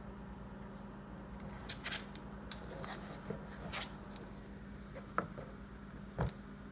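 Kittens scrabbling in and on an empty cardboard cereal box: irregular scratches, rustles and taps of the cardboard under their paws. There is a cluster of louder scrapes about two seconds in and a bump near the end.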